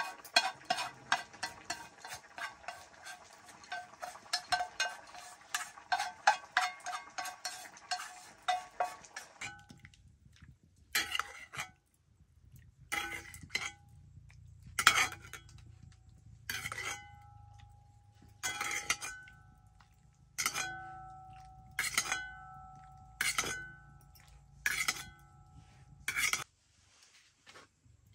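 A metal utensil clinking and scraping against metal cookware, first in quick continuous strokes, then, about a third of the way in, as separate ringing clinks every second or two.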